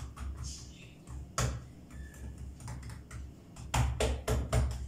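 Light taps and knocks of pizza dough being patted and pressed by hand on the kitchen counter: one tap about a second and a half in, then a quick run of several near the end. A low steady hum runs underneath.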